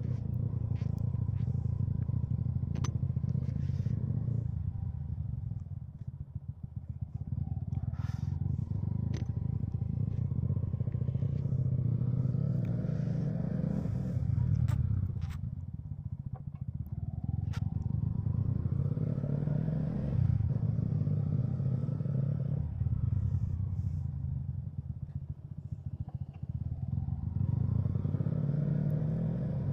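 Motorcycle engine running during a ride, picked up by the action camera, revving up and easing off several times with rising pitch as it pulls. A few sharp clicks are heard along the way.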